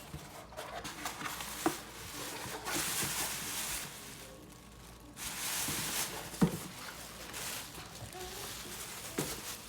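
Packaging being handled, with rustling and crinkling in two stretches and a couple of sharp knocks, the loudest about two-thirds of the way through.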